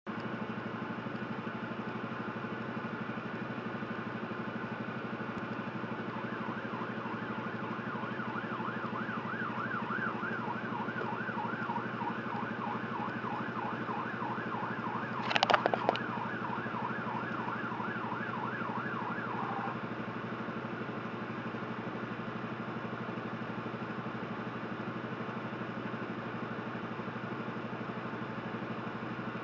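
Police motorcycle siren in a fast warbling yelp, starting a few seconds in and stopping about two-thirds of the way through, with a few short, loud blasts in the middle. Underneath, the truck's engine idles steadily.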